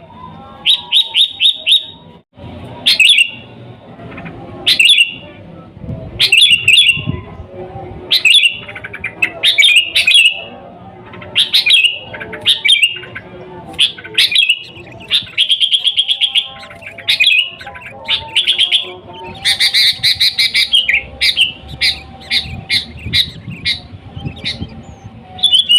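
Sooty-headed bulbul (kutilang) singing: short bright phrases of quick notes, repeated every second or two, with a harsher, denser burst about twenty seconds in.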